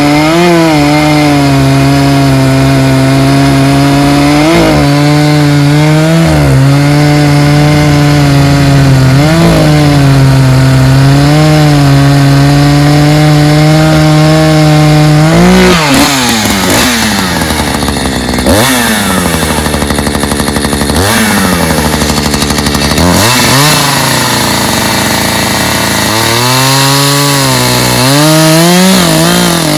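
Two-stroke chainsaw cutting wood at a steady high pitch, the engine note dipping briefly every couple of seconds under load. About halfway through, the engine speed swings up and down several times, then settles back into steady cutting.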